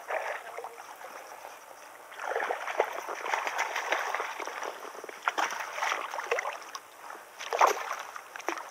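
A hooked bass thrashing and splashing at the surface of shallow water as it is reeled in: a run of splashing from about two seconds in, then a few sharp single splashes, the loudest near the end.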